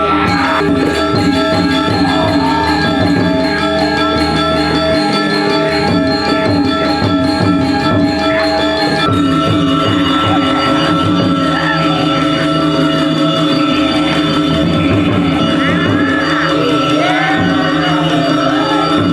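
Background music: sustained chords with a wavering melody line, moving to a new chord about nine seconds in.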